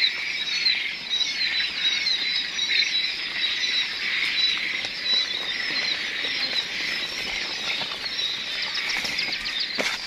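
A large flock of young Japanese hybrid quail chicks peeping without pause, many high chirps overlapping into a dense chatter.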